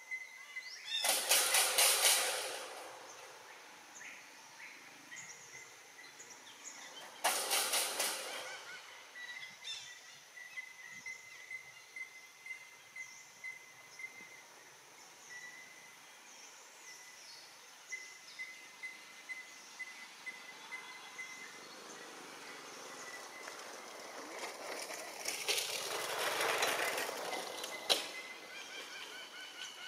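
Outdoor natural ambience: a steady high-pitched trill with three loud noisy bursts, one about a second in, one about seven seconds in and a longer one near the end.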